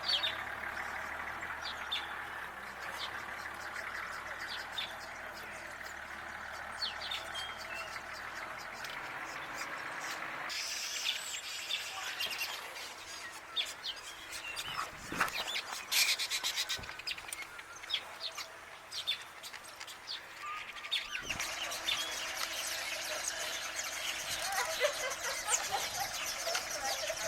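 Wild birds chirping and calling, many short high notes over a steady hiss of outdoor background noise, which changes abruptly twice.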